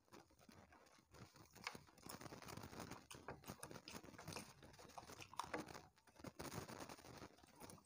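Faint eating sounds: chewing, with many small clicks and rustles of fingers mixing rice and fish curry on plates.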